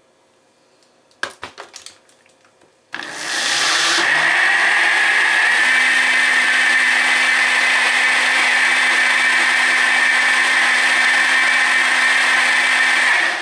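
A few clicks and knocks, then about three seconds in a NutriBullet Rx blender's motor starts and runs steadily for about ten seconds, blending dragon fruit with water and sugar, and stops near the end.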